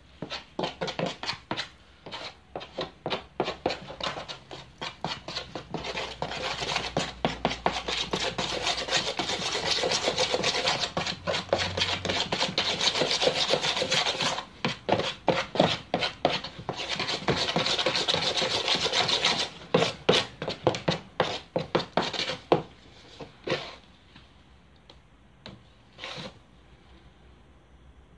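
Putty knife scraping and stirring wall filler mixed with water in a plastic mortar tub: a long run of quick scraping strokes against the tub that thins to a few separate scrapes and fades out near the end.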